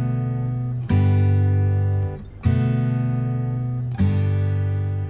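Background music: acoustic guitar strumming chords, three strums about a second and a half apart, each left to ring out and fade.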